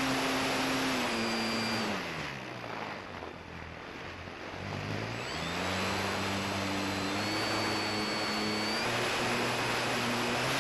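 Durafly Tundra RC plane's electric motor and propeller whining, heard from onboard with air rushing over the microphone. The whine falls away about a second in as the throttle is pulled back, leaving a few seconds of mostly air noise in a glide, then rises in pitch as power comes back on and steps up again a little later.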